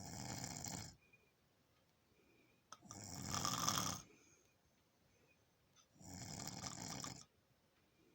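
Snoring in a steady rhythm: three snores about three seconds apart, each lasting just over a second, the middle one the loudest.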